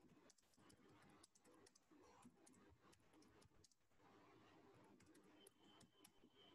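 Very faint computer keyboard typing: irregular key clicks, several a second, over near-silent room tone.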